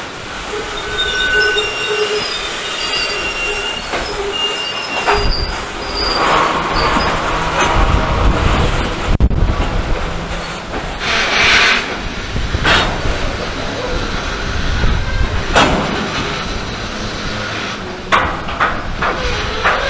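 Freight train of covered hopper cars rolling past, with wheel flanges squealing in high steady tones during the first few seconds over a steady rumble. In the second half, wheels clack sharply over rail joints several times.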